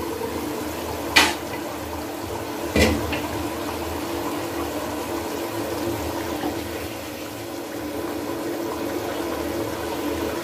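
A sauce with split chickpeas (chana dal) bubbling at a boil in a nonstick pan while it is stirred with a wooden spatula; the dal is being cooked until soft. Two sharp knocks come about one and three seconds in, over a steady hum.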